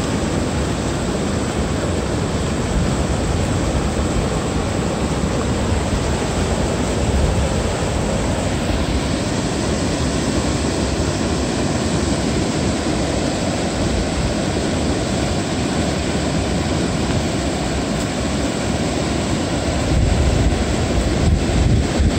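Steady rush of river water churning over rapids. Near the end, wind buffets the microphone.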